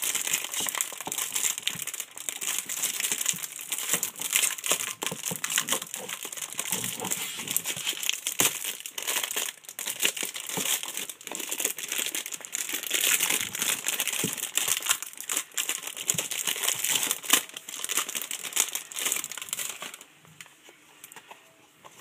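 Clear plastic packaging bag crinkling and crackling as it is pulled open and the wallet is unwrapped by hand, a continuous rustle full of sharp crackles. It stops abruptly about two seconds before the end.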